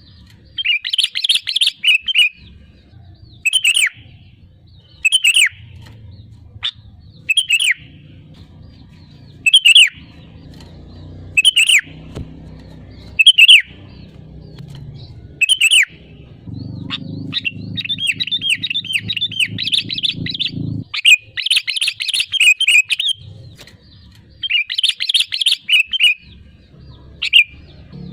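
Sooty-headed bulbul (kutilang) calling: loud, short, clear downward-sliding notes about every two seconds, broken by several one-to-two-second bursts of rapid chattering song.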